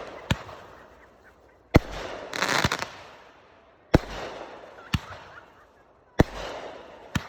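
Consumer fireworks going off: about six sharp bangs one to two seconds apart, most trailed by a second of fading crackle and hiss, with a dense burst of crackling about two and a half seconds in.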